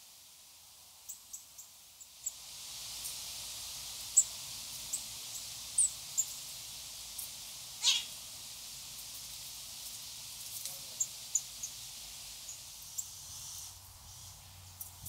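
Small songbirds giving short, high chirps and calls, scattered irregularly, with one louder, longer call about eight seconds in. A steady outdoor hiss sets in about two seconds in.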